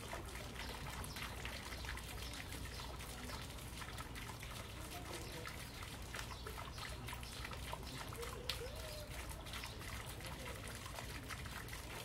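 Small fountain trickling and splashing steadily into a shallow pond.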